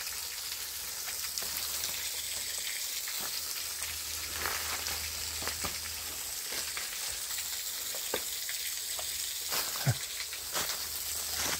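Meltwater dripping and trickling from the icicles and ice of a frozen waterfall: a steady hiss with scattered sharp drips.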